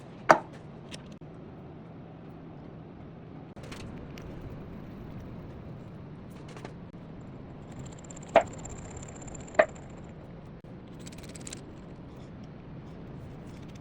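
A steady low hum with three sharp knocks: one near the start and two about a second apart past the middle. A thin high whistle is held between the last two.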